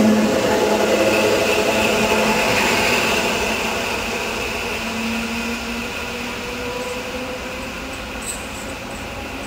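Electric train running on the line: a steady rumbling hum with a few held tones, slowly fading.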